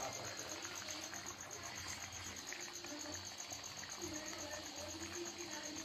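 An insect's steady, high-pitched trill, pulsing evenly about four or five times a second, over low background noise.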